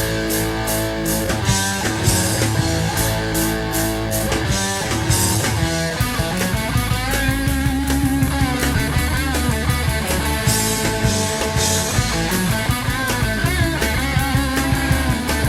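A late-1970s rock band recording: electric guitar over bass and a drum kit.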